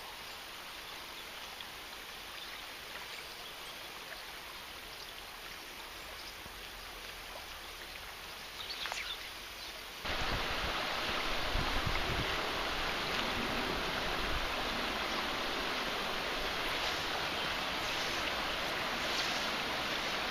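Shallow, rocky moorland river flowing: a steady rush of running water. About halfway through it abruptly gets louder and fuller, with more low rumble.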